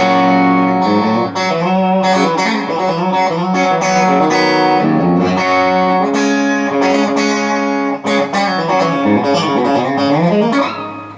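Electric guitar played through an amplifier over a Joyo wireless transmitter and receiver: continuous chords and single notes ringing one into the next, with a brief dip about eight seconds in.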